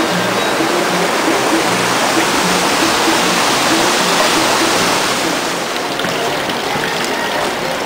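Steady rushing of a mountain stream, an even hiss of water, with background music fading out about halfway through.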